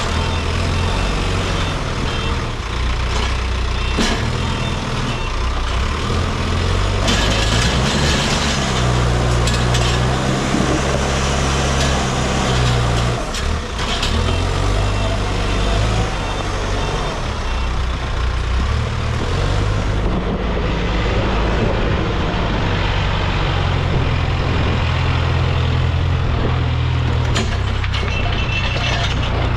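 Case backhoe loader's diesel engine working under load, its engine speed rising and falling repeatedly, highest about a third of the way in.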